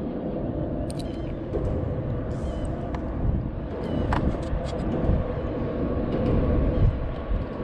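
Steady low rumble of road traffic crossing the highway bridge overhead, with a few light clicks.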